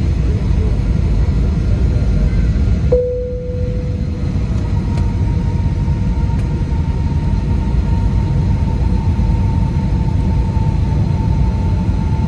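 Airbus A320 cabin noise heard from a passenger seat: a steady, loud low rumble of the engines and airflow. About three seconds in, a thin steady whine starts and carries on over the rumble.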